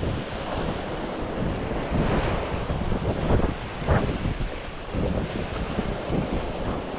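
Wind rumbling and buffeting on the microphone in uneven gusts, over the wash of sea waves.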